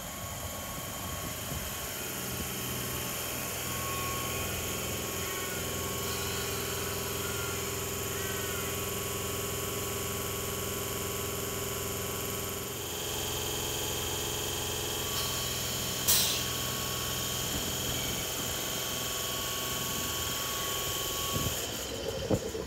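Sydney Trains silver double-deck electric train running slowly past, with a steady hum and whine from its electrical equipment and a single sharp click about two thirds of the way through.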